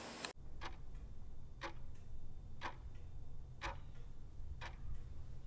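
A clock ticking steadily, about once a second, over a faint low hum.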